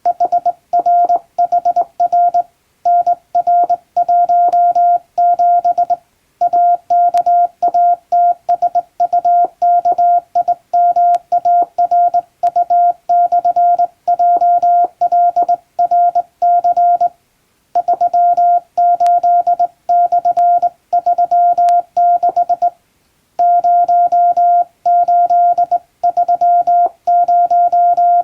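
Hand-sent Morse code from a JRC telegraph key, heard as a single steady beep tone keyed on and off in quick dots and dashes, spelling out an English-language telegram. Short pauses break the sending about six, seventeen and twenty-three seconds in.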